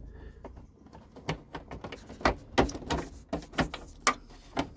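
Plastic wire connectors being worked loose and pulled out of the control board of a Truma Combi 4E heater: a run of irregular small clicks and knocks.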